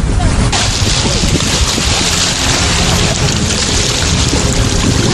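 Wind buffeting the microphone over waves washing onto a pebble shore, a steady noisy rush, with faint voices.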